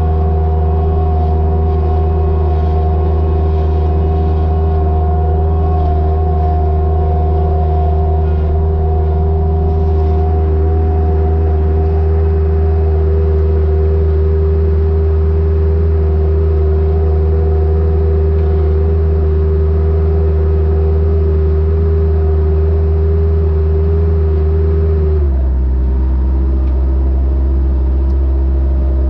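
Compact loader tractor's engine running steadily at close range, with a steady whine over it while the tractor drives. About 25 seconds in the engine drops to a lower speed and the whine stops.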